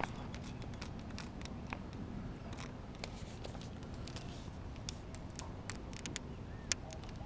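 Footsteps on a dirt path with scattered light, irregular clicks and rustle from handling a baitcasting rod and reel, over a steady low rumble.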